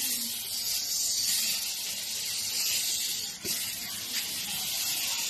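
Aerosol body spray can being sprayed into the air: a long, loud hiss with a brief break about three and a half seconds in, then a second burst.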